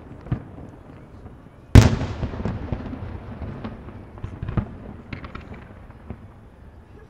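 Fireworks display: aerial shells bursting, with one loud bang a little under two seconds in that trails off in a long rumbling echo, followed by smaller pops and crackles that die down toward the end.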